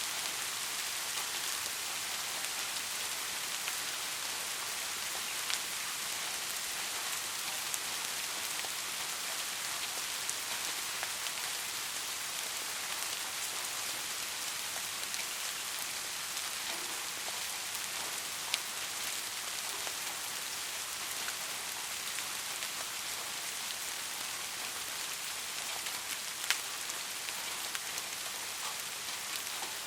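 Steady rain falling, an even hiss with a few sharper individual drops striking a surface now and then.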